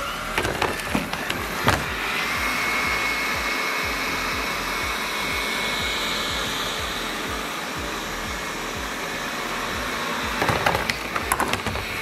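Liectroux ZK901 robot vacuum running with a steady whir and a faint high whine, with a cluster of knocks about a second in and again near the end as it drives over a raised threshold strip.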